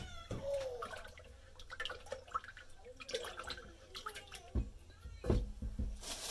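Silicone spatula stirring melted soy wax in a metal pouring pitcher: small wet clicks and scrapes against the metal. There are two dull knocks late on, and a crinkling hiss at the very end as a plastic bag of wicks is handled.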